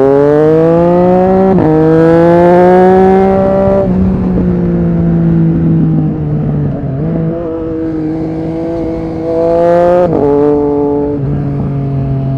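Triumph Street Triple RS 765 inline-three running through an SC-Project S1 exhaust under hard acceleration. It shifts up about a second and a half in, keeps pulling, then rolls off the throttle around four seconds. It builds revs again and makes a second quick upshift near ten seconds.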